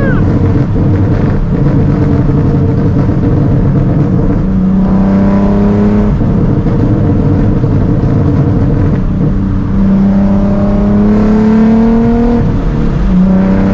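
Nissan 370Z's 3.7-litre V6 running through a Tomei titanium cat-back exhaust with test pipes, on the move. The engine note climbs steadily in pitch twice under acceleration, briefly about five seconds in and for longer from about ten seconds in, then drops and picks up again near the end.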